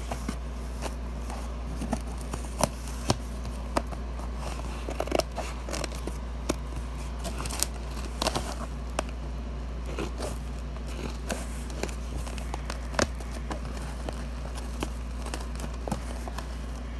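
Scissors snipping and cutting along the taped edge of a cardboard box, with scattered sharp clicks and crackling of tape and cardboard over a steady low hum.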